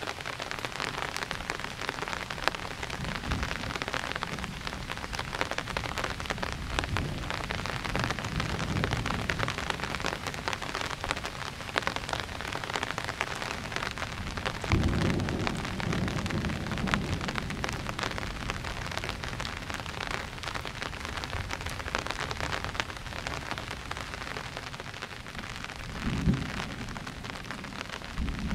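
Steady rain falling with a dense patter of drops. Thunder rumbles low several times, the strongest roll about halfway through and another near the end.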